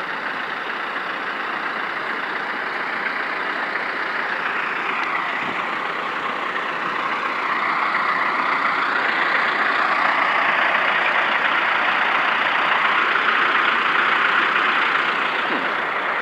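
Steady fairground din: an even rushing noise with no clear tones, growing a little louder about halfway through.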